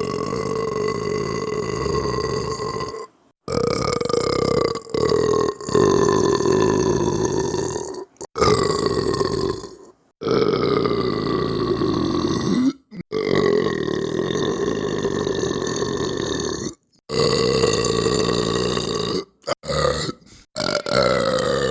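A string of long, drawn-out belches, each lasting a few seconds, broken by sudden short gaps. The pitch holds steady or sags slowly through each belch, and there are a few short belches near the end.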